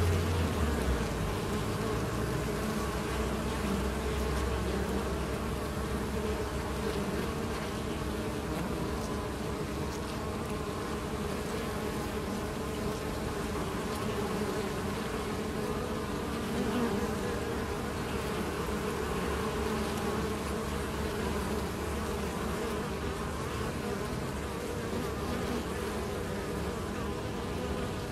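Honey bees buzzing at a hive entrance: a steady, dense hum of many bees flying in and out at once with busy foraging traffic.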